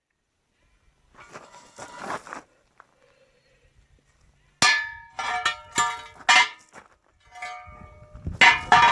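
Steel parts clanking and ringing as they are knocked and handled on a metal bench. After a soft scuffle there is a run of sharp metallic knocks about halfway through, and another cluster near the end.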